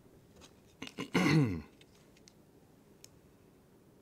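A man's short wordless vocal sound, falling in pitch, about a second in, just after a couple of small clicks. A faint click follows a couple of seconds later.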